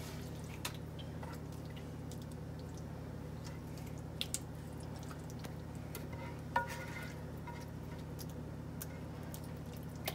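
Meat sauce being scraped from a frying pan into a foil pan with a silicone spatula: soft wet plops and scrapes with a few light knocks, the sharpest about six and a half seconds in with a brief ringing clink. A steady low hum runs underneath.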